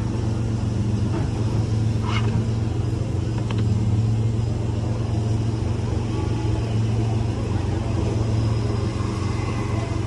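Pickup truck engine idling with a steady low hum.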